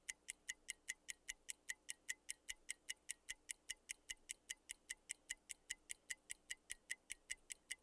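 Countdown timer ticking: quick, even, high-pitched ticks, about five a second.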